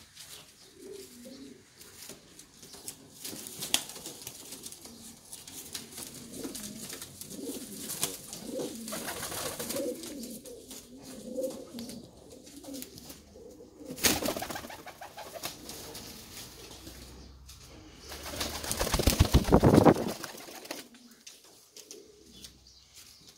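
Reversewing Pouter pigeons cooing, low repeated calls. Near the end comes a loud, fluttering rush of noise lasting about a second and a half.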